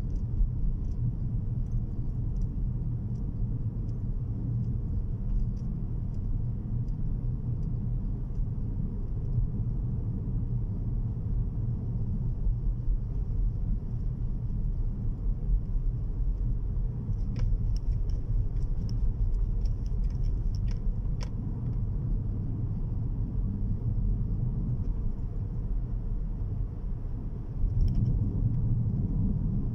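Steady low rumble of a car driving, heard from inside the cabin: road and engine noise, with a few faint light ticks around the middle and a slight swell near the end.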